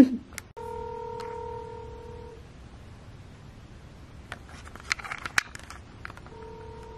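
Telephone ringback tone playing through a phone's speaker while a call rings out: a steady ring about two seconds long, then silence, then the next ring starting near the end.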